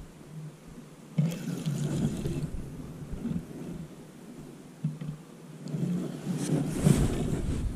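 Wind buffeting the microphone: a rumbling whoosh with gusts of hissing noise about a second in and again near the end.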